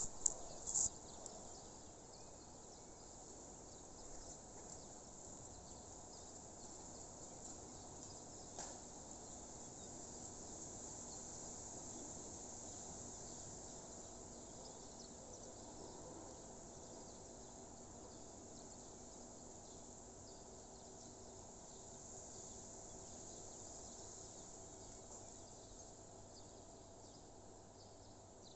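Crickets chirring steadily and faintly in a high, even haze, with a few short clicks near the start.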